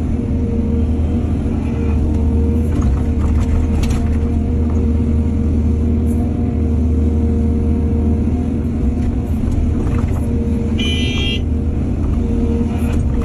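Heavy diesel engine of earthmoving machinery running steadily with a deep, even rumble. There are a few short knocks, and a brief high-pitched squeal comes about eleven seconds in.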